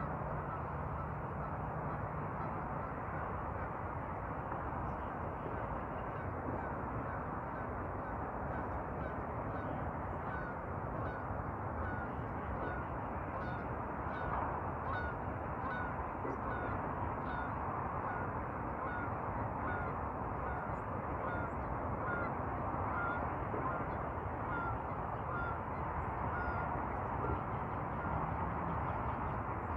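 Canada geese honking faintly, a run of short repeated calls through the middle of the stretch, over a steady background rush.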